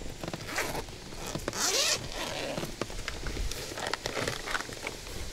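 Close handling noise while a soft-plastic jig is rigged: rustling and small clicks, with a zip pulled quickly about one and a half seconds in.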